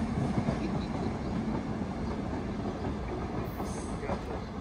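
St. Louis Car Company R44 subway train running along the track away from the platform, its sound fading as it recedes.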